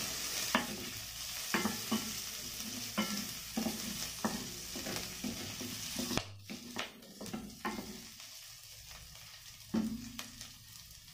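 Pork strips, onion, ginger and garlic sizzling in oil in a stainless steel pot while a wooden spoon stirs them, with frequent scrapes and taps of the spoon against the pot. The sizzle drops away sharply about six seconds in, leaving a few fainter spoon strokes.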